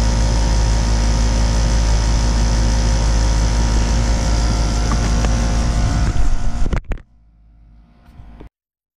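Outdoor air-conditioner condensing unit running, a steady hum of compressor and condenser fan. A few bumps come around six seconds in, then the sound cuts off suddenly about seven seconds in.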